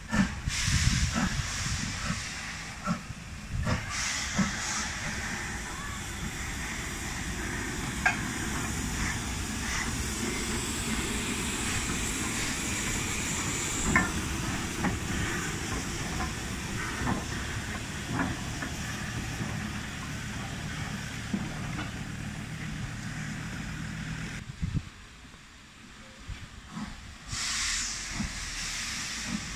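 LNER B12/3 4-6-0 steam locomotive moving slowly past at close range with a steady hiss of steam and a few sharp knocks. The hiss drops away near the end, then comes back briefly in a short burst.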